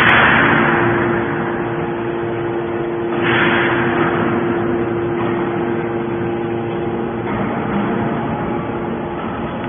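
Hydraulic metal scrap baler running with a steady mechanical hum. Two louder rushing surges come over it, one at the start and one about three seconds in, each fading within a second or so.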